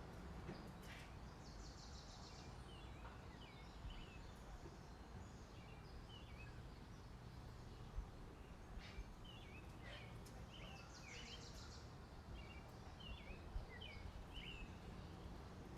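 Small birds chirping, a scatter of short high chirps over a faint steady background noise, with a brief buzzy trill twice. There are a few faint clicks.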